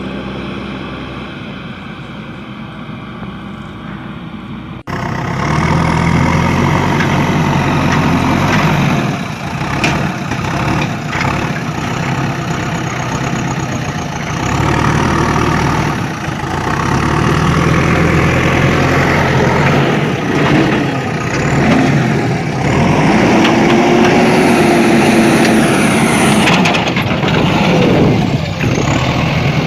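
Wired-remote toy wheel loader running: a steady engine-like mechanical drone, which turns abruptly louder and rougher about five seconds in, with scrapes and knocks as the bucket digs into and dumps soil.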